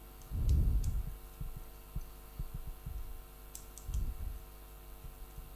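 Handling noise as a wire is fastened into a plastic screw-terminal connector with a small screwdriver: scattered dull knocks and soft thumps, the loudest about half a second in and about four seconds in, with a few faint light clicks.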